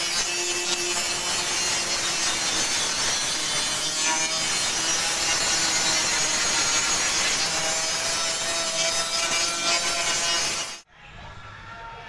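Electric angle grinder grinding the steel body panel of a Kubota tractor, a steady loud grinding with a pitch that wavers as the disc bites into the metal. It cuts off suddenly near the end.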